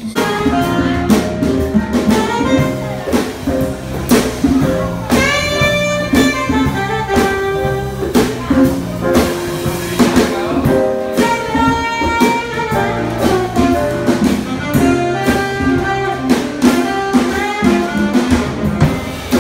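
Small live jazz band playing, with a saxophone carrying the melody over a drum kit.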